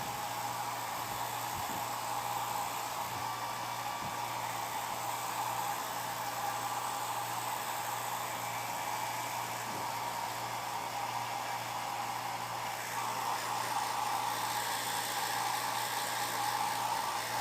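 Handheld hair dryer blowing steadily: a constant rush of air over a low, even motor hum, growing a little louder about thirteen seconds in.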